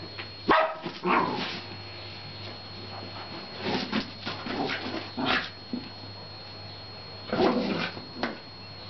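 West Highland white terrier puppy giving short barks and yips during play, in about half a dozen separate bursts, loudest near the start and again near the end.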